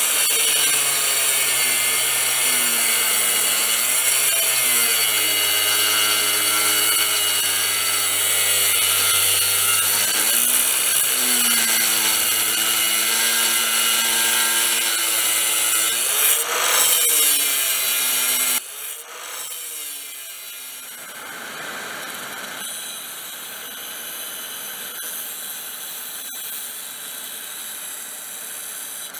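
Angle grinder with a thin cutoff wheel cutting through leaf-spring steel, its motor tone dipping in pitch a few times as the wheel bites. About 19 seconds in the sound drops abruptly to a quieter, steady grinding as the wheel cuts small notches into the edge of the blank.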